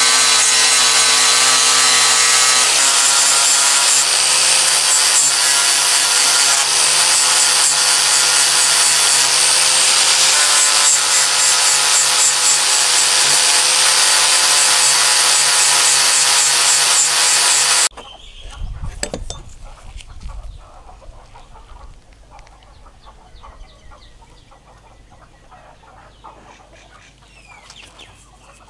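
Electric angle grinder running at full speed with an abrasive disc pressed against the steel of rusty pliers, a loud steady whine with the rasp of the grinding. It cuts off suddenly about two thirds of the way through, leaving only small handling sounds.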